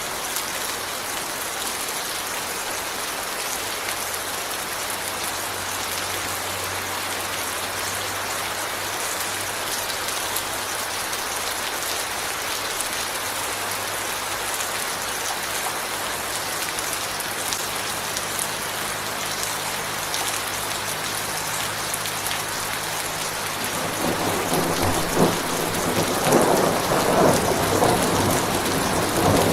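Steady rain hissing. Near the end, thunder rolls in and the low rumble grows louder.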